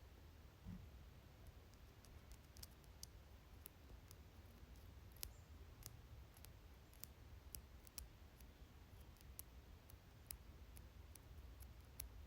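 Faint, sharp, irregularly spaced clicks, a few a second, over a low steady hum.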